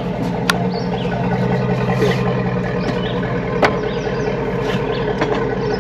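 An engine idling steadily, with a few sharp clicks or knocks over it.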